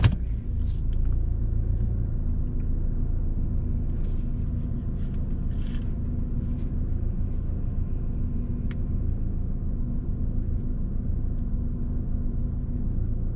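Saab 9-5 Aero's turbocharged 2.3-litre four-cylinder engine idling steadily, heard from inside the sound-deadened cabin as a low, even rumble.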